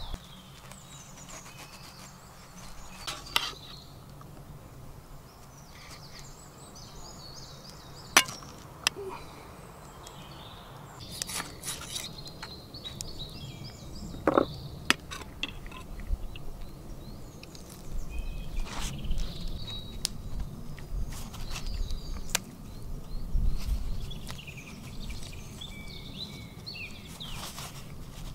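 Sharp, separate clinks and taps of a knife against a metal skewer and wooden chopping board as grilled chicken is pushed off the skewer, with birds chirping in the background.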